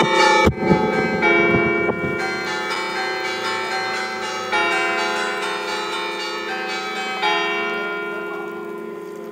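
Five church bells tuned in F (Fa3) ringing in a tower to call to mass. The peal is winding down: strokes come close together at first, then single strokes about four and a half and seven seconds in, and the ringing fades away.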